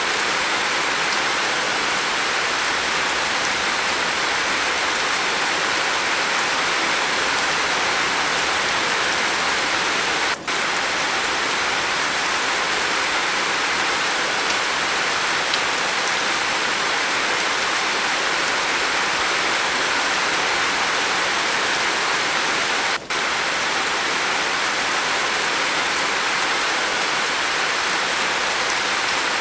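Steady heavy rain falling on a roof, a dense even patter. The sound dips for an instant twice.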